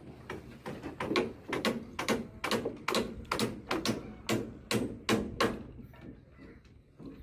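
Hammer striking wooden formwork: a steady run of sharp knocks, about two to three a second, ending about five and a half seconds in.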